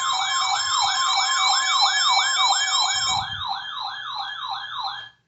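Electronic siren-style alert alarm from a weather alert radio: a fast rising whoop repeating about three times a second over a steady tone, cutting off suddenly near the end.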